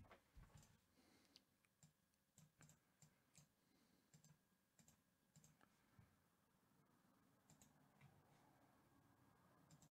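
Faint, scattered clicks of a computer mouse and keyboard, over low room hum.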